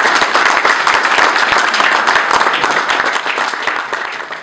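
Audience applauding, a dense patter of many hands clapping that starts to die down near the end.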